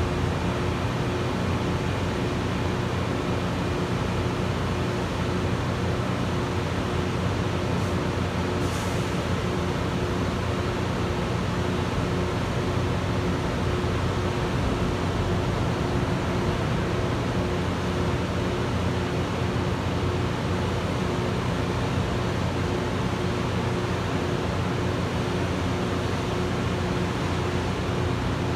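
Loram rail grinder's diesel power units running steadily while the train stands still: a constant drone with a steady low hum. A brief high hiss about nine seconds in.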